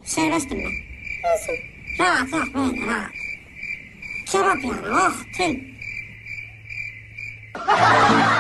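A young kitten mewing repeatedly in short, high calls that bend up and down, coming in small clusters, over a steady high-pitched trill. Near the end, louder music takes over.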